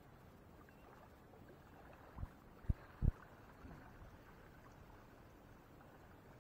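Three dull low thumps a little over two seconds in, from the shoulder- or chest-mounted camera being jostled as it is moved, over a faint steady background of lake water lapping at the shore and light wind.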